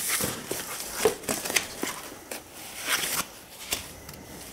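A cardboard shipping box being unpacked by hand: flaps pushed back and a white packing sheet lifted off the contents, giving irregular rustling and scraping with light taps and clicks.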